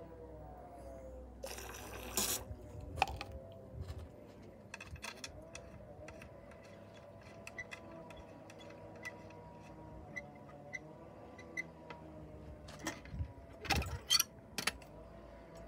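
Handling noises on a Mamod toy steam traction engine: scattered light clicks and knocks of small metal parts, including a short rushing sound about two seconds in. A cluster of louder metallic knocks comes near the end as the sheet-metal canopy is set in place.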